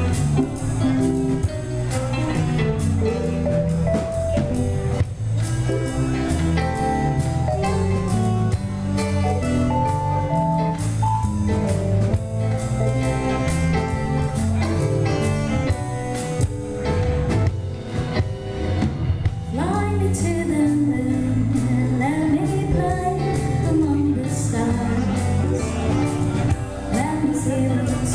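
Live band playing a song through a PA system, with drums, guitars and keyboard over a steady beat and bass line; a woman's singing comes in about two-thirds of the way through.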